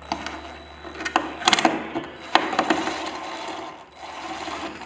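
Cordless drill driving screws through a light's base plate, the motor running in a few short bursts as each screw is run in and seated.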